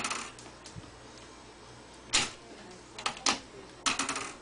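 Sharp clicks and cracks during a chiropractic neck adjustment: one about two seconds in, then two quick ones, then a rapid cluster of several near the end.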